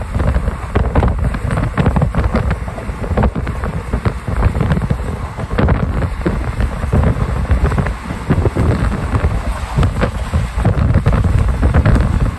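Wind buffeting the microphone at the open window of a moving passenger train, in uneven gusts over the low rumble of the train running along the track.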